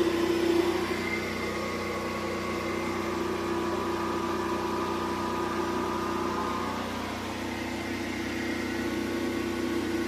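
Generator engine running steadily under the power outage, a constant engine hum whose tone shifts slightly about seven seconds in.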